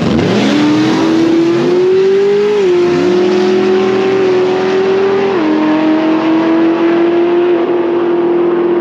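Cadillac drag car's supercharged V8 at full throttle on a drag-strip pass, the engine note climbing steadily through each gear with two upshifts, one about two and a half seconds in and one about five and a half seconds in.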